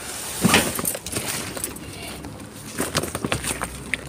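Plastic bags and loose items rustling and clattering as gloved hands rummage through a bin, with irregular crinkles and clicks, the sharpest about half a second in.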